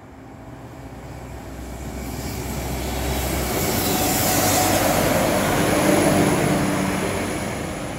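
Class 195 diesel multiple unit passing over a level crossing, its engine and wheel noise growing louder to a peak about six seconds in, then fading as it moves away.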